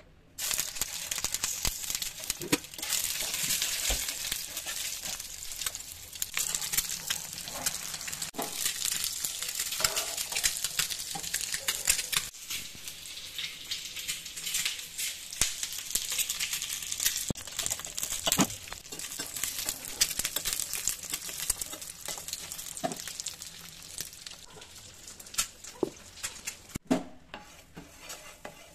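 Boiled eggs sizzling as they fry in hot oil in a pan, a steady hiss with scattered clicks of a utensil touching the pan.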